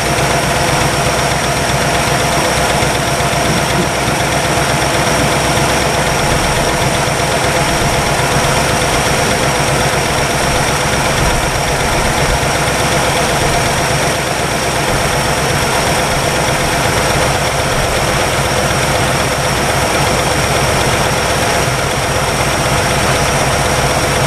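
1962 Chevrolet engine idling steadily as it warms up after 35 years parked, running on fresh oil. It has a slight valvetrain noise that the owner takes for valve clearance or lifter tick.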